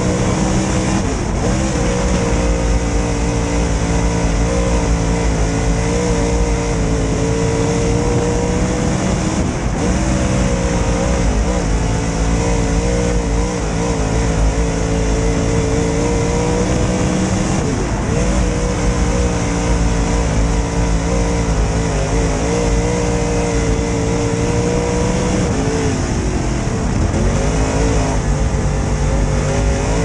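A dirt late model race car's V8 engine running hard at racing speed, heard from inside the cockpit. Its note holds steady, then dips briefly and climbs back about every eight seconds as the driver lifts off and gets back on the throttle around the track.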